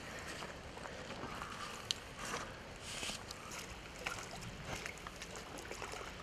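Faint wind and lapping water at a lake edge, with a few soft clicks and small splashes as a hooked fish is played in close to the bank.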